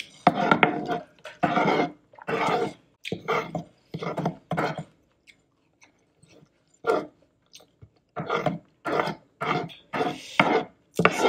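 Close-miked chewing of a crunchy cucumber salad, a crunchy bite about once a second, pausing for a couple of seconds midway.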